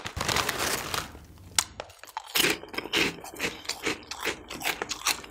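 Foil snack bag rustling as a hand reaches in, then crisp Poca roast-chicken puffed snacks crunched between the teeth, about two or three crunches a second.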